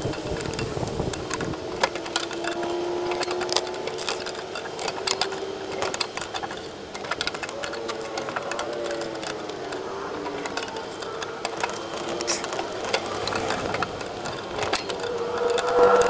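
Metal clicking and scraping of a small wrench working the bolt on a propane fridge's burner gas line, many quick ticks throughout, with a faint wavering tone underneath.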